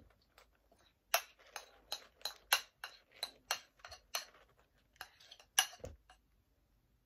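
An uneven run of sharp, light clicks and taps, two or three a second for about five seconds, as a small bowl is tipped and emptied of melted chocolate into a large plastic mixing bowl of cornflakes.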